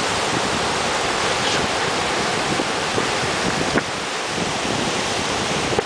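Ocean surf breaking and washing ashore, a steady rushing noise, with wind blowing on the microphone. One short click about four seconds in.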